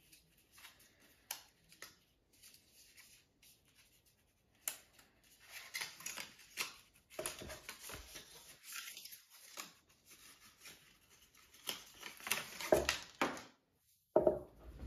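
Paper and cardboard packaging rustling, crinkling and tearing by hand while a computer is unboxed: a paper pull-tab is peeled away, then a coiled power cord is worked out of its paper wrap. The sound is sparse at first, with scattered sharp clicks and taps, and becomes busier and louder about five seconds in.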